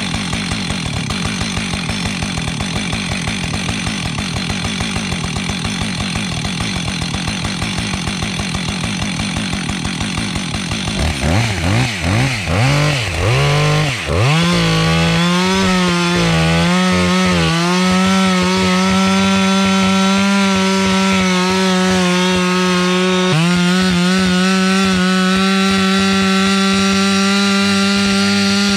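Husqvarna 555 chainsaw's 60cc two-stroke engine driving a Lewis chainsaw winch: it runs at low revs with an even beat for about ten seconds, revs up and down a few times, then holds at high revs as the winch hauls logs up a hill. The engine note dips briefly about two-thirds of the way through, then settles again.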